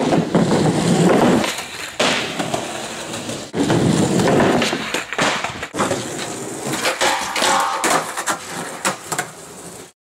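Skateboard wheels rolling over a rough concrete patio, in two louder surges, with several sharp clacks of the board popping and landing.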